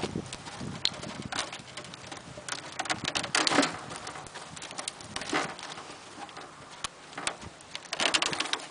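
Intermittent rustling and light rattling of a wire cage and the plastic sheet over it as hands push food through the bars, in short irregular bursts.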